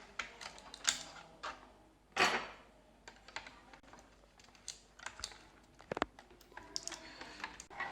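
Scattered light clicks and taps of plastic and metal as a laptop's RAM module is fitted into its slot, with a brief ringing tick about six seconds in.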